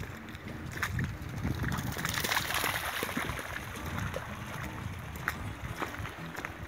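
A dog running through a shallow, gravelly river channel, its feet splashing in the water, with wind rumbling on the microphone.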